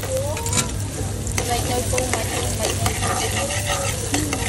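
Chopped garlic frying and sizzling in a small metal frying pan, with a metal ladle scraping and clicking against the pan as it is stirred. A steady low hum runs underneath.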